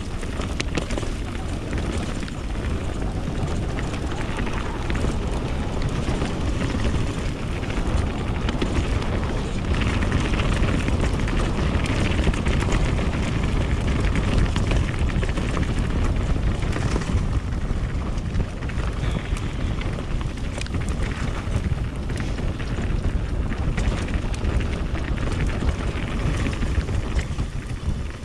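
Mountain bike riding down a dirt flow trail: wind buffeting the camera microphone over tyre noise on the dirt, with frequent clicks and rattles from the bike.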